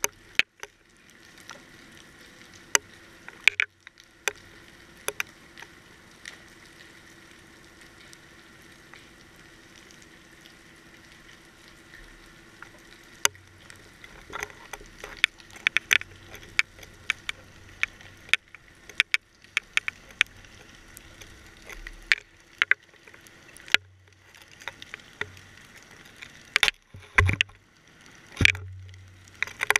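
Underwater GoPro housing on a weighted trolling rig: scattered sharp clicks and knocks of the rig hardware against the housing, denser in the second half, over a faint steady hum, with a couple of heavier thumps near the end.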